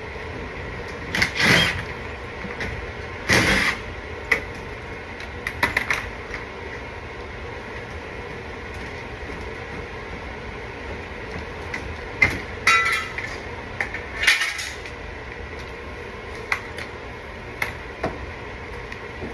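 Scattered metal clanks and rattles of tools and parts being handled, a few at a time with gaps between, over a steady machine hum.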